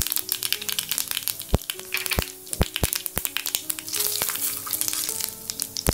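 Mustard seeds popping and crackling in hot oil in a pan: sharp, irregular pops over a steady sizzle, the sign that the oil is hot enough for the tempering.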